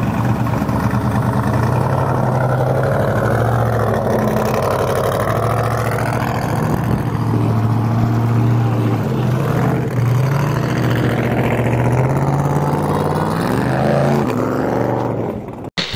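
Ford F100 trophy truck's engine running, its pitch rising and falling as the revs change. The sound cuts off sharply just before the end.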